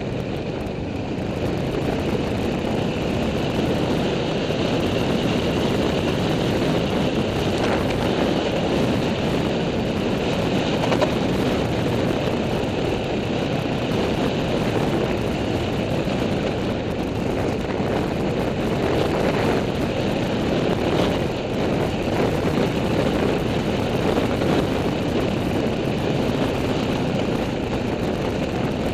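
Off-road vehicle engine running steadily while riding a rough dirt track, mixed with wind and trail rumble on a helmet-mounted camera.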